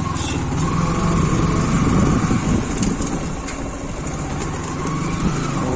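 Motorcycle engine running steadily while riding in road traffic.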